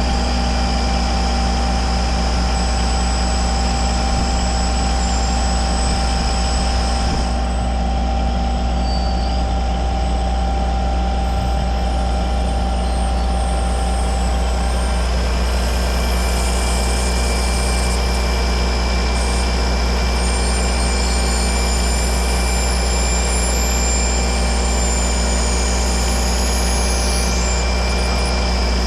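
Heavy engine running steadily without a break, a deep low hum under a few steady higher tones.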